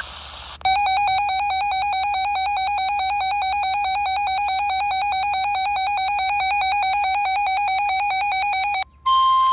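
Electronic weather-alert siren: a loud, rapidly warbling two-pitch alarm tone that runs for about eight seconds and cuts off suddenly. After a short gap, a steady single tone, the NOAA Weather Radio warning alarm tone, begins near the end.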